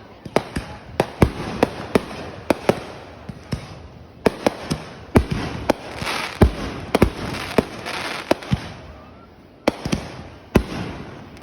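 Fireworks going off: sharp bangs at irregular intervals, often several a second, with crackling between them and a short lull about three-quarters of the way through.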